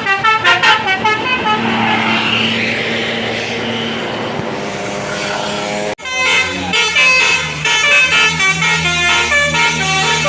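Basuri multi-tone 'telolet' bus horn playing a quick stepped tune. A rushing noise follows, then a sudden cut about six seconds in, then another horn tune.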